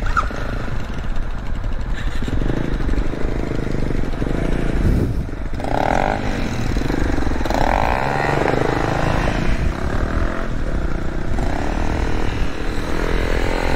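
Honda CB500X's parallel-twin engine running while the motorcycle is ridden off-road, with some clatter.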